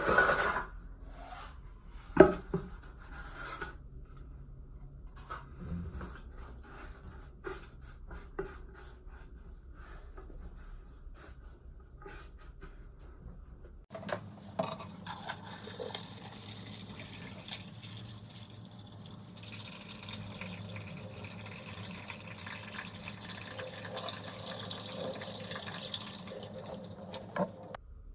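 Water running and splashing in an aquascape tank. In the first half there are scattered clicks and knocks. About halfway through it turns abruptly into a steadier, fuller flow of water.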